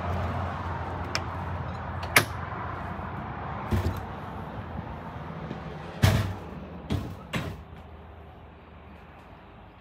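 Entry door of a Heartland Gateway 3400SE fifth-wheel trailer being opened as someone climbs in: a sharp latch click about two seconds in, then several knocks from the door and steps. A steady outdoor hum fades away underneath.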